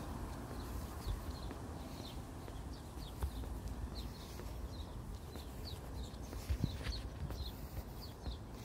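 A bird chirping over and over, short falling chirps about two a second, over a low background rumble and a few faint footsteps.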